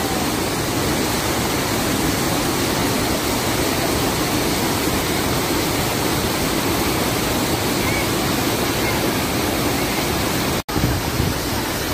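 Rain-swollen river water pouring over a stone check-dam spillway and rushing over rocks: a steady, loud rush of water, with a momentary cut-out near the end.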